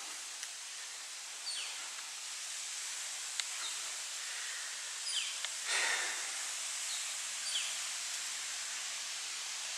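Steady outdoor background hiss with a few faint, short, high chirps that slide downward in pitch, scattered through, and one somewhat louder call about six seconds in.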